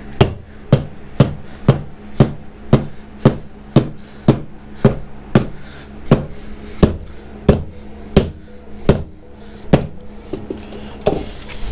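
Hammer blows struck one after another, about two a second and gradually slowing, against a motorcycle tire to break its stubborn bead loose from the rim.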